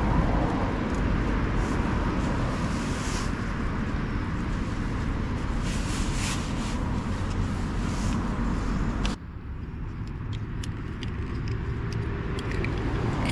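Steady hum of road traffic with nylon rustling as camping gear is packed into a rucksack. About nine seconds in the sound drops abruptly to a quieter background.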